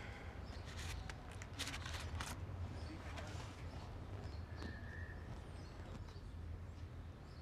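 Quiet ambience: a steady low hum with faint bird chirps, and a few short clicks and rustles between one and two seconds in.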